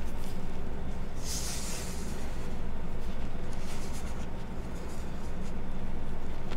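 Reformed gym chalk being crushed: a soft, powdery hiss of crumbling chalk about a second in, then scattered small crunches and crackles, over a steady low hum.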